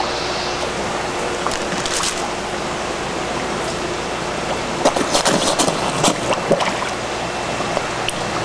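Large koi splashing at the water surface as they crowd and feed from a baby bottle, with sharp splashes bunching up about halfway through, over a steady rush of running pond water.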